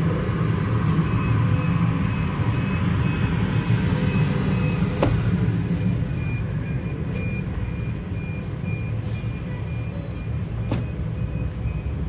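Steady low rumble of city street traffic. From about a second in, a short high beep repeats about twice a second, and there are two brief sharp clicks.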